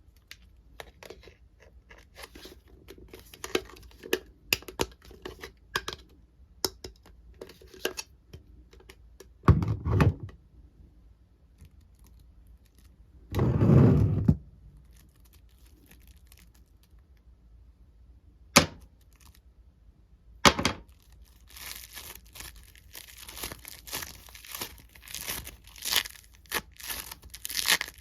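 A foam squishy toy and plastic toy parts being handled, giving a run of small crackles and tearing sounds. There are two louder rustling bursts, two sharp clicks, then dense crackling over the last several seconds.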